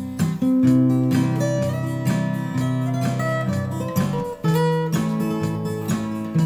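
Acoustic guitar strummed in an instrumental passage of a song, with the chords changing every second or two.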